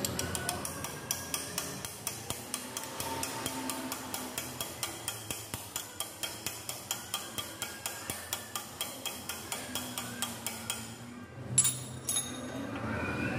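Background music with a steady ticking beat, about three ticks a second. Near the end, one loud sharp metal clank.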